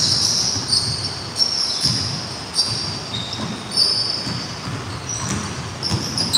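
Basketball bouncing on a hardwood gym floor, with many short high-pitched sneaker squeaks as players cut and stop on the court.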